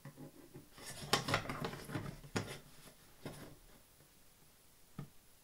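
Ruler and pen scraping and rubbing on a hard plastic tote lid as center-point lines are marked out: a handful of short scrapes, then one sharp click near the end.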